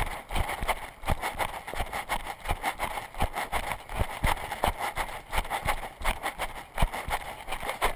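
Running footsteps on a dirt trail, an even thud about three times a second, picked up by a camera carried by the runner, so each stride also jolts the microphone.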